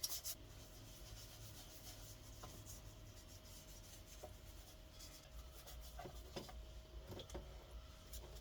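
Faint rubbing on a clock case being stripped with thinners, with scattered soft taps and a sharp click at the very start.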